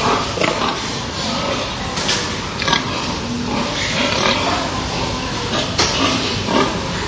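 A barnful of crated pigs making a loud, continuous din of calls at feeding time, while feed is being scooped out to them.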